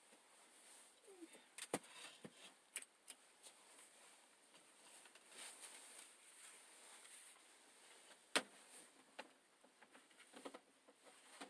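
Near silence, broken by a few faint, sharp clicks and taps scattered through it.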